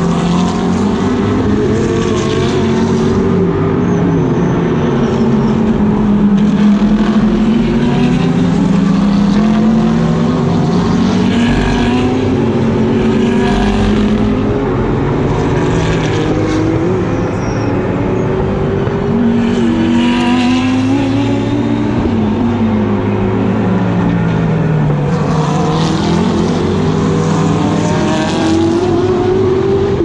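GT race car engine heard from on board, its note climbing hard under acceleration and sliding down under braking several times, with abrupt drops in pitch at the gearshifts.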